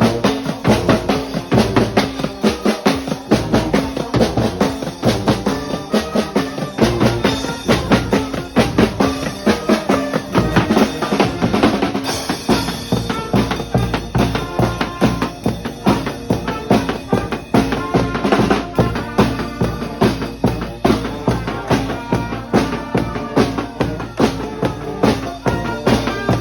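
Brass-and-percussion street band playing: bass drum and snare keep a fast, steady beat under held horn notes.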